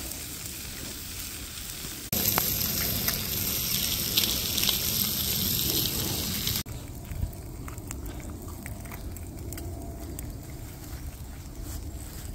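Bacon rashers sizzling in frying pans over campfire embers, a steady hiss with spitting crackles. The sizzle is much louder and denser for a few seconds from about two seconds in, then drops back to a softer hiss with occasional pops.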